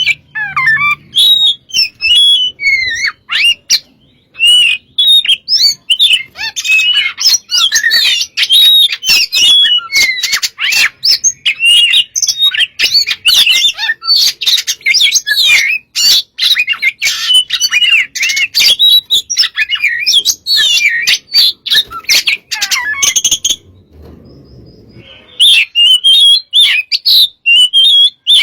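Oriental magpie-robin (kacer) singing a loud, rapid, varied song of whistled glides and sharp notes, packed with mimicked phrases. It breaks off for about two seconds near the end, then resumes.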